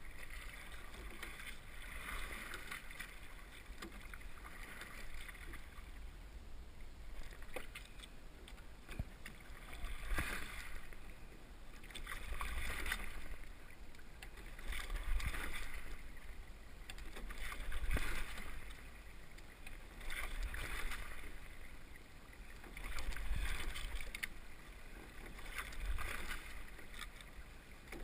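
Sculling in a Bay 21 open-water rowing shell: oar blades splashing and swishing through the water with each stroke, the sound swelling about once every two and a half seconds. A few sharp knocks come through during the strokes.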